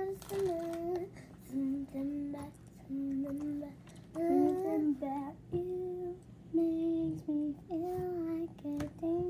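A girl singing a simple tune in short held notes, stepping between a few pitches.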